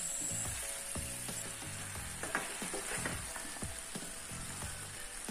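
Chicken pieces sizzling and frying in onion-tomato masala in a nonstick pan while a spatula stirs and turns them, with repeated light scrapes and taps against the pan.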